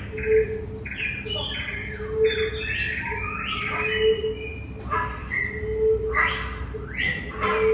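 Several birds calling at once in an aviary: a busy mix of short chirps and sliding, squawky calls, with a low note swelling about every two seconds underneath.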